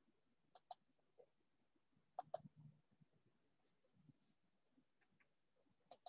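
Faint computer mouse clicks: three quick double-clicks, spread over several seconds, with a few softer ticks between them.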